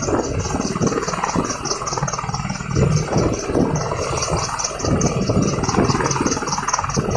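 Helicopter running close by: continuous engine and rotor noise with a fast chopping beat.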